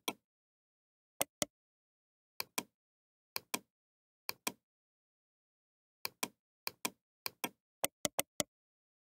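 Computer mouse button clicks, each a quick press-and-release pair, about ten of them at uneven intervals with a pause midway and a faster run near the end.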